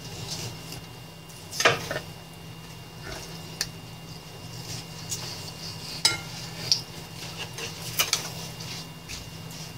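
Kitchen knife slicing raw chicken breast on a wooden cutting board: scattered knocks and scrapes of the blade against the board, the loudest about one and a half seconds in.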